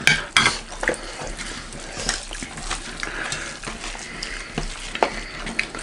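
Eating sounds: fingers squishing rice and curry together on metal plates, wet and sticky, with scattered small clicks of food and fingers against the plates.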